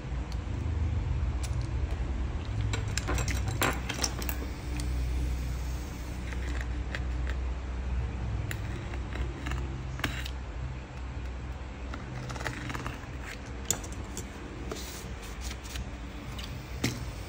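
Scattered small clicks, taps and scrapes of a smartphone's metal middle frame and plastic housing being handled and pressed together by hand, over a low steady hum.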